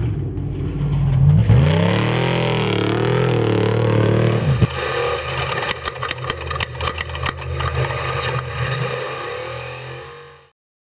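Unlimited-class desert race truck's engine revving up and down under throttle. About halfway through a knock, then the engine runs at a steadier pitch under rattling and clattering, and the sound fades out near the end.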